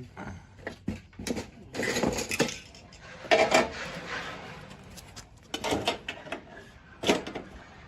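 Sheet-metal gutter pieces clanking and rattling as they are handled, in a series of separate knocks, the loudest about three and a half seconds in.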